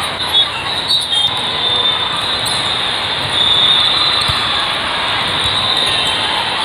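Steady din of a large hall during an indoor volleyball tournament: many voices and shoe squeaks blending into a constant wash of noise, with a few sharp slaps of the volleyball being hit in the first few seconds.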